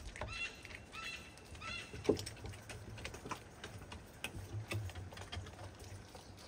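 Red fox chewing raw meat: irregular wet clicks and crunches of its jaws working the meat, one sharper crunch about two seconds in. A few short high-pitched chirps sound in the first two seconds.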